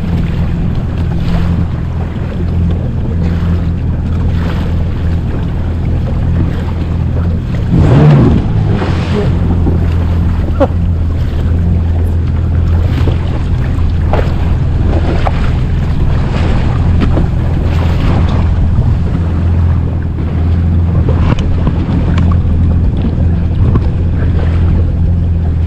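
Yamaha jet ski's engine running at low speed with a steady low drone, under water splashing along the hull and wind buffeting the microphone, with a louder burst about eight seconds in.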